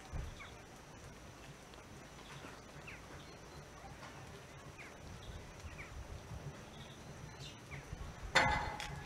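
Small birds chirping now and then, short falling calls, over a faint low rumble of wind. About eight seconds in comes a single brief, louder sharp sound.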